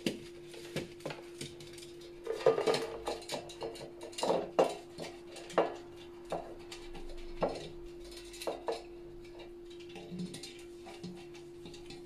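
A pastry brush scraping and tapping around the inside of a cake pan as oil is brushed over it, with irregular light knocks as the pan is shifted on the table. A steady low hum runs underneath.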